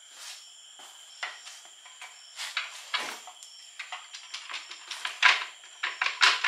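Scattered light metallic clicks and knocks of hand tools working on an aluminium CVT transmission case, with a louder knock about five seconds in. Near the end a quick, even run of clicks begins, about five a second.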